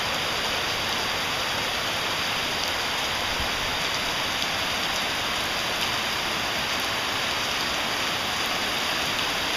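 Heavy rain pouring down on a paved street, a steady even hiss with faint scattered drop ticks.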